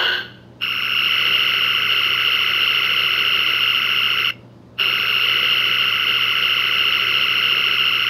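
Star Trek original-series phaser sound effect played from the model's sound board: the end of a short blast, then two long, steady, high-pitched phaser firings of nearly four seconds each, with a half-second pause between them.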